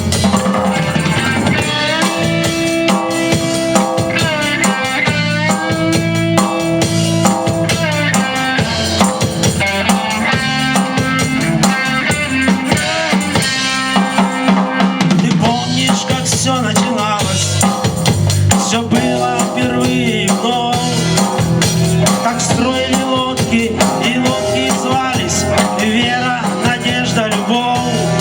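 Band playing the instrumental introduction of a pop-rock song: a drum kit with bass drum and snare keeps a steady beat under bass and held, melodic lead lines, without singing.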